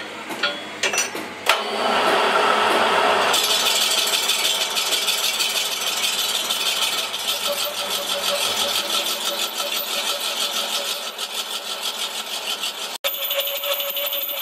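Metal lathe machining a steel truck wheel rim: the cutting tool scrapes and chatters against the spinning rim in a dense, fast rattle. A few sharp metal clinks in the first second and a half as the tool is set.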